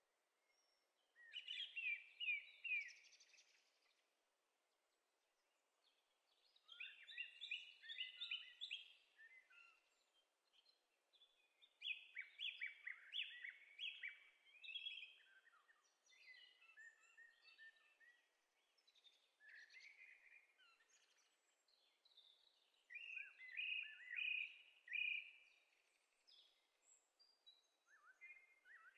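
Faint birdsong: rapid high notes in phrases of two to three seconds, repeated with short pauses.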